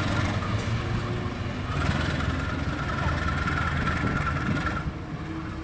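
CC 203 diesel-electric locomotive running as it shunts, a steady low engine rumble with a broad hiss over it that drops away near the end. A faint steady high whine sits over it for a few seconds in the middle.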